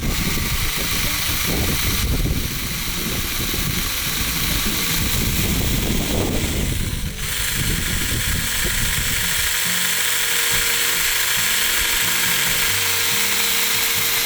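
Small hand-held chainsaw running and cutting into a pumpkin, a loud steady saw noise. About seven seconds in the sound changes and then runs more evenly.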